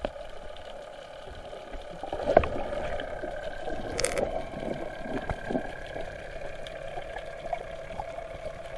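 Underwater sound picked up by a submerged camera: a muffled, steady hum with a faint whine above it, broken by scattered soft ticks and gurgles, a louder bubbly splash about two seconds in and a sharp click about four seconds in.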